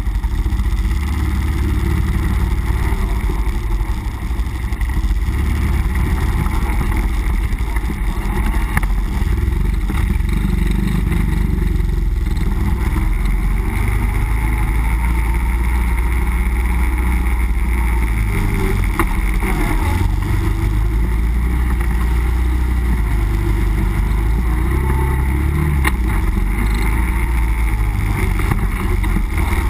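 Nissan Pathfinder 4x4 driving off-road: engine and drivetrain running steadily under load with a loud low rumble, the engine note shifting a few times as the throttle changes.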